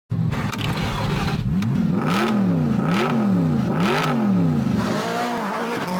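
Intro sound design: a low electronic tone sweeping up and down about once a second, with a whoosh at each upward sweep.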